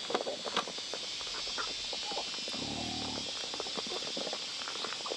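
Farmyard sounds: scattered small clicks and taps over a steady high drone, with a low animal call about two and a half seconds in and again near the end.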